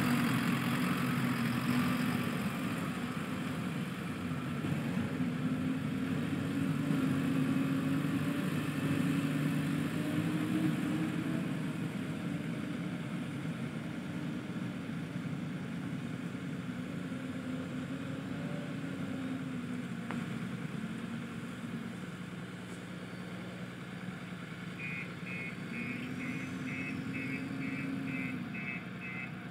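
JCB 3DX Eco-Xpert backhoe loader's diesel engine running, its pitch rising and falling as it works under load. A quick series of about ten beeps comes near the end.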